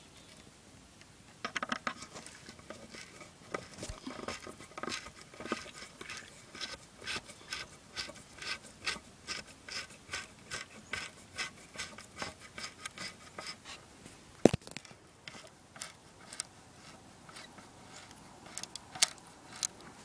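A screw being turned by hand into the tree's wood to hang a woodpecker house: a run of short creaking, scraping strokes at about two a second. Then a single sharp click, and a few lighter clicks near the end.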